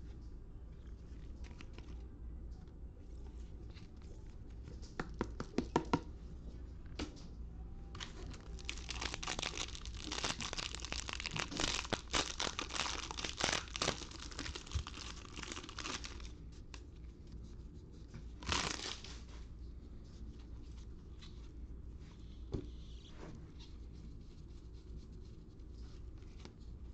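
Clear plastic wrapper of a Score football trading-card pack being torn open and crinkled by hand. A few sharp clicks come first, then a long stretch of crinkling through the middle, and one more short crinkle a couple of seconds after it.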